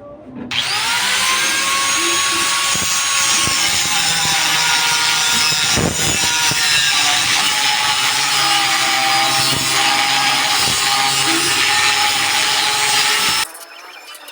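A handheld power tool motor spins up about half a second in, then runs steadily with a loud hiss for about thirteen seconds and cuts off abruptly near the end.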